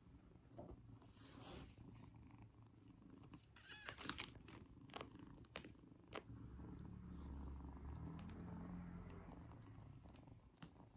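A kitten purring, the low purr swelling about midway and going on for several seconds. There are a few soft clicks and rustles a few seconds in.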